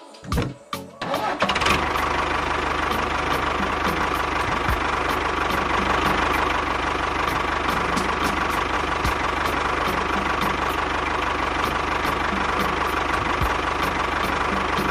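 An engine-like motor sound starts about a second in and then runs steadily at an even speed, with a regular fast ticking through it.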